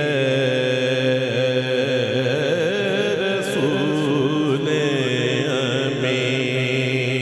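A man singing a Punjabi naat through a PA microphone, drawing out long, ornamented notes without words over a steady low drone.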